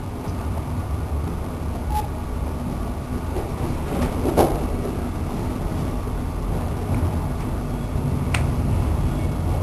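Low, steady rumble of a passenger train rolling slowly, heard from inside the carriage, with a few sharp knocks from the wheels and running gear; the loudest comes about halfway through.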